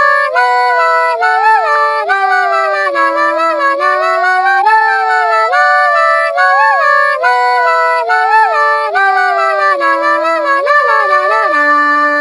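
A phone ringtone playing: a synthesized melody with chords over a stepping bass line, cutting off at the end of one pass through the tune.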